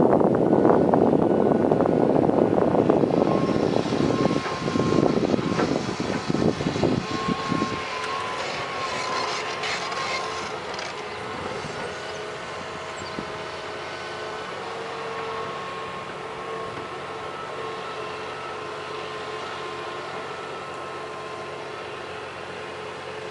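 John Deere excavator's diesel engine running, loud and rumbling for the first several seconds, then dropping to a quieter steady hum with faint steady whining tones over it.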